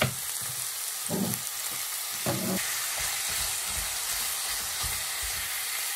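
Minced beef and chopped onion sizzling steadily as they fry in a little oil in a non-stick pan, stirred with a silicone spatula: the mince is browning.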